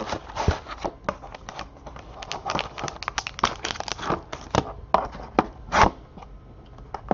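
Trading-card packaging being handled: irregular crinkling and crackling rustles of wrapper and card sleeves as cards are unpacked and sorted.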